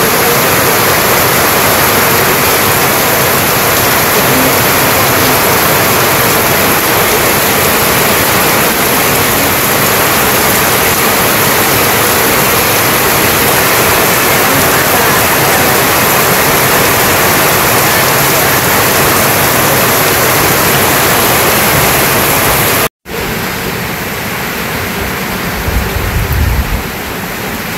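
Heavy rain pouring steadily onto corrugated tin roofs and running off the eaves, an even loud hiss. About 23 seconds in it cuts off abruptly to a much quieter steady hiss.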